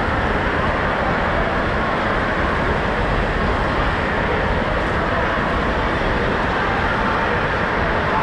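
Steady, even din of an indoor water park hall: running and splashing water from the pools and play structure mixed with the noise of a large crowd.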